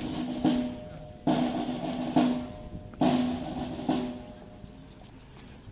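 A drum beating slowly and steadily, about one stroke a second, each stroke ringing on briefly; the beat stops about four and a half seconds in.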